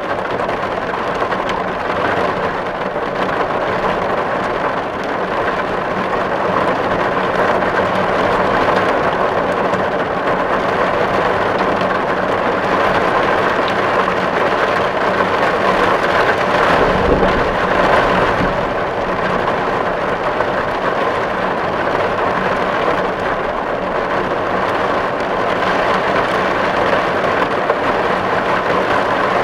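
Steady rain drumming on a tin roof in a dense, even patter, with a brief low rumble about halfway through.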